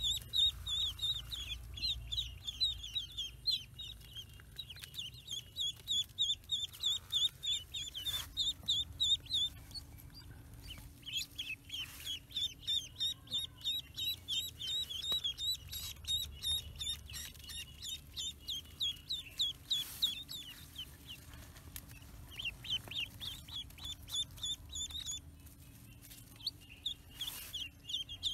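Several ducklings peeping: rapid runs of short, high-pitched peeps in bouts, broken by brief pauses.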